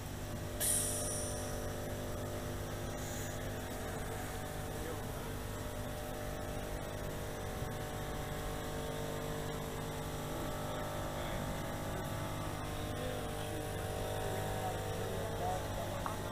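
A steady low electrical hum, with a short hiss about half a second in.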